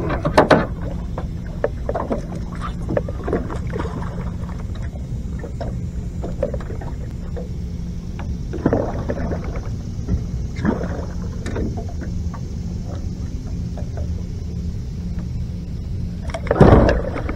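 A hooked blue catfish splashing at the side of a small boat while it is landed by hand, with the biggest splash near the end as it is lifted from the water. A steady low rumble runs underneath.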